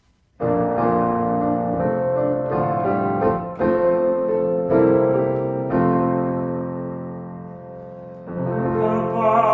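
Grand piano playing the introduction to a hymn. Chords start about half a second in, one chord is held and fades away, and the playing picks up again near the end.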